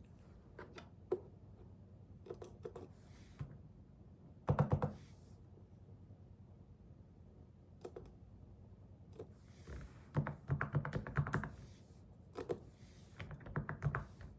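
Typing on a computer keyboard in short bursts: a quick run of keystrokes about four seconds in, more runs near the middle and toward the end, and scattered single key presses in between.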